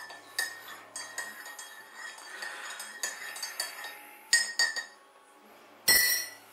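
A metal spoon clinking against a glass mug of acorn coffee, about half a dozen separate ringing clinks, the loudest about four and a half seconds in and near the end.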